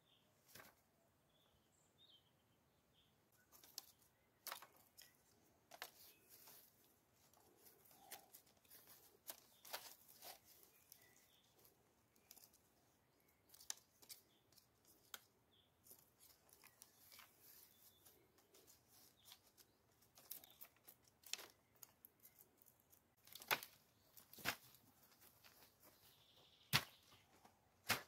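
Thin wooden sticks clicking and knocking against one another as they are laid and woven into a stick lattice, with soft rustling between the irregular clicks; the sharpest knocks come in the last few seconds.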